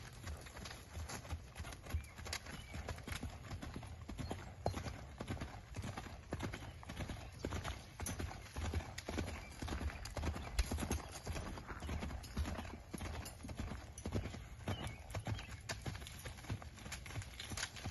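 A bay horse's hooves beating on sandy dirt as it canters under saddle, a continuous run of dull hoofbeats over a steady low rumble.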